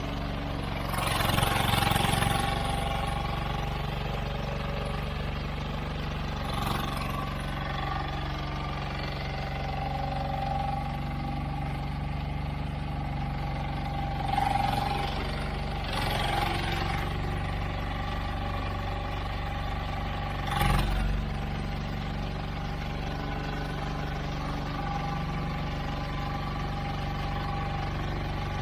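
Mini excavator's diesel engine running steadily under hydraulic load, with a constant hydraulic whine over it. Several louder bursts of noise break in: near the start, twice in the middle, and a sharp one later on.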